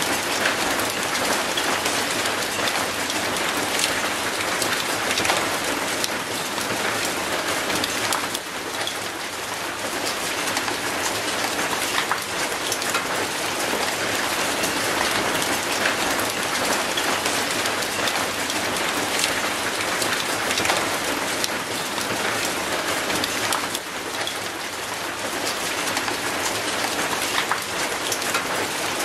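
Steady heavy rain falling on concrete and an old rusty metal gate: a dense hiss of rain with sharp single drops ticking through it.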